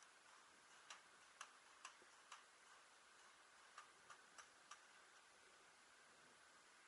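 Faint, sharp pops of paintball markers firing, two runs of four shots about half a second apart.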